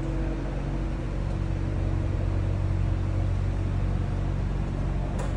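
Steady low mechanical hum of an even pitch, with a brief click near the end.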